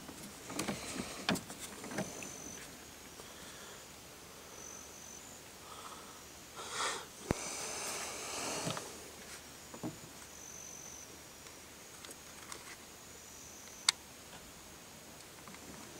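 Kayak being paddled on a still creek: scattered knocks of the paddle and hull and a couple of swishes of water, with a few short, high whistles in the background.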